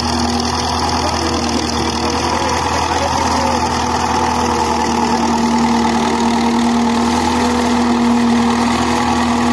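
Belarus tractor's diesel engine running steadily at a constant pitch under load, pulling a tine harrow and levelling bar across tilled soil.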